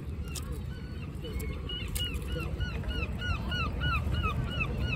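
A bird calling in a long rapid series of short rising-and-falling notes, about three a second, starting about a second in and growing a little louder, over a steady low rumble of wind and sea.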